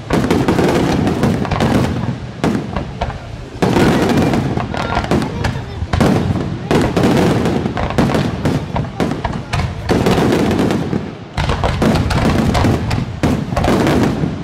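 Aerial firework shells bursting in rapid succession: a dense, almost unbroken barrage of bangs and crackling, with brief lulls about two and eleven seconds in.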